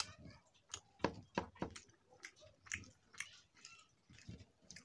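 Close-up chewing of a mouthful of rice and curry eaten by hand: irregular wet smacks and clicks, several a second.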